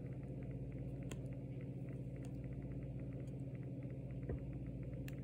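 Faint soft ticks of trading cards being flipped through by hand, over a steady low hum.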